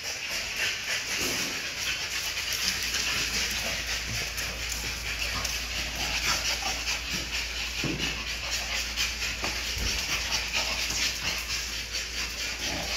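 American bully puppies and an adult dog playing, with a few short faint dog sounds over a steady background hiss and low hum.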